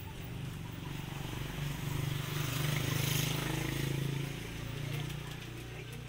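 A motor vehicle's engine passing by, its steady hum growing louder to a peak about three seconds in and then fading away.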